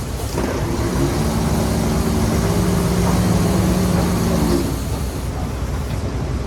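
Heavy diesel engine of an earthmoving machine running steadily over a low rumble; its engine tone drops away about four and a half seconds in, leaving the rumble.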